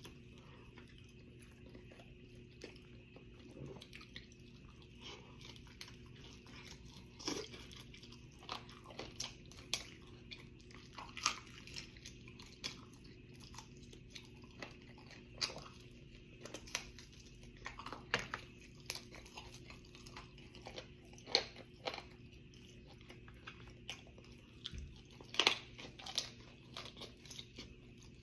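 Close-up chewing and biting into crispy fried chicken, with irregular crunches and wet mouth clicks over a faint steady hum.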